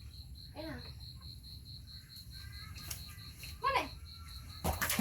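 Pet monkey giving two short, high-pitched squeaks, each rising and then falling in pitch, about half a second in and again near the end. A splash of water follows just before the end.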